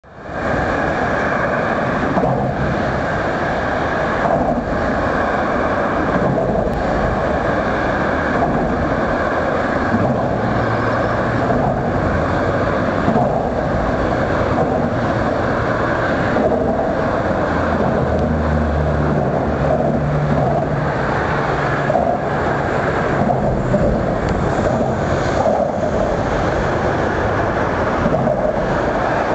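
Steady engine noise with a rushing hiss, running evenly without rising or falling.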